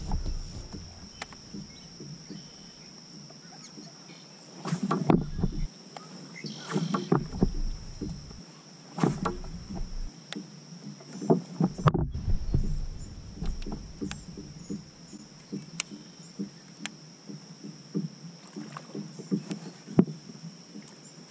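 Double-bladed kayak paddle strokes dipping and splashing in calm water, one stroke every second or two, with quieter stretches between.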